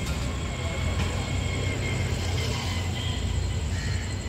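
Steady low rumble of distant vehicles, with faint higher sounds over it.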